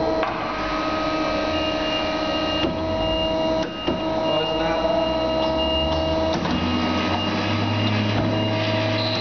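Large industrial bandsaw running: a steady machine drone with several held whining tones, a broken high tone near the middle, and a low hum that grows near the end.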